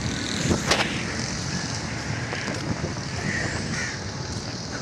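Crows cawing a few short times in the second half, over a steady low outdoor rumble.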